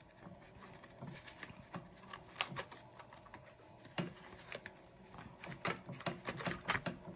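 Hands handling paper bills and clear plastic cash envelopes in a ring binder: scattered light clicks and taps with soft rustling, coming more often near the end.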